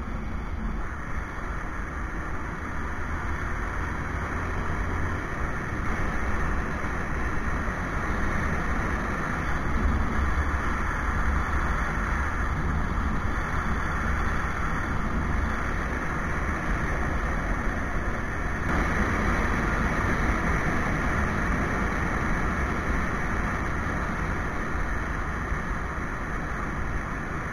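Street motorcycle riding at cruising speed on a paved highway: steady engine, wind and road noise with a deep rumble and no sudden events.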